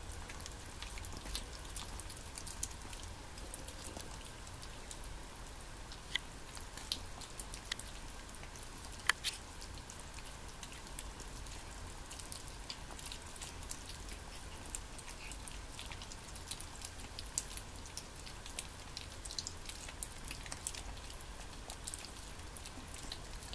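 Five kittens eating dry cat food from small plates: many small, irregular crunches and clicks, one louder click about nine seconds in, over a steady low hum.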